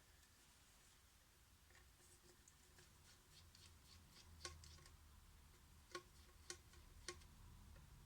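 Faint small clicks and taps of tools and parts during smartphone disassembly, a handful of sharp ticks in the second half over a near-silent room.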